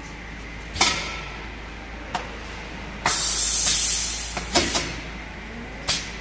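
Loading a round steel tube into the rotary chuck of a fiber laser tube cutter: several sharp metal clacks of the tube and chuck, and about three seconds in a burst of air hiss lasting about a second, over a steady machine hum.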